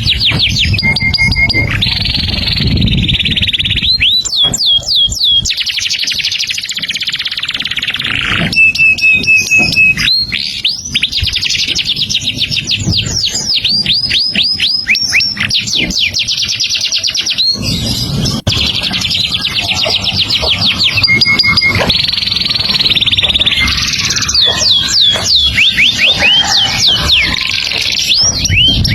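Caged songbird singing nonstop in a long, varied song. It runs fast strings of sharp rising notes, short held whistles and harsher hissy stretches, with barely a pause between phrases.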